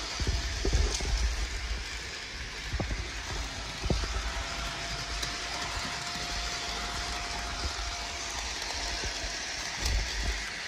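HO scale model train running past on plastic roadbed track: the locomotive's small electric motor and the wheels make a steady rolling hum, with a few sharp clicks in the first few seconds. A faint steady whine holds for a few seconds midway.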